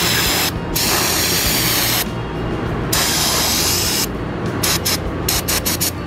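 Aerosol brake parts cleaner sprayed onto a motorcycle brake caliper in loud hissing blasts, several of up to about a second each, then a quick run of short spurts near the end.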